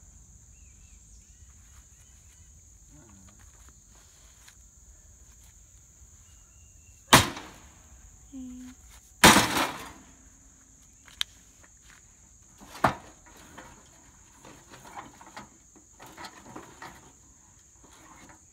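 Sledgehammer blows on an old metal grill: two loud hits about two seconds apart, some seven and nine seconds in, then lighter hits a few seconds later. A steady high insect buzz sounds underneath.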